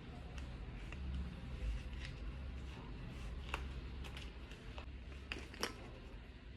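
Faint small handling noises, a few scattered light clicks and rustles, over a low steady hum.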